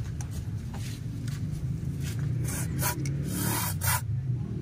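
Hand scraping and brushing on an engine part, a run of rasping strokes that gets heavier in the second half, as carbon deposits are cleaned off.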